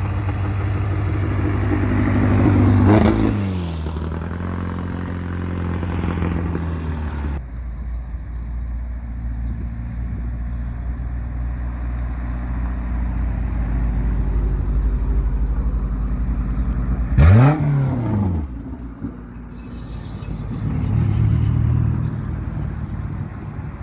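Car engines running loudly. One climbs in pitch and then slides back down about three seconds in, and about 17 seconds in an engine gives a quick, sharp rev that is the loudest moment.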